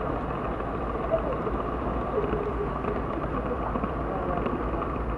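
Steady rolling rumble of an N-scale model train running along the track, picked up by a camera riding on one of its cars, with faint voices in the background.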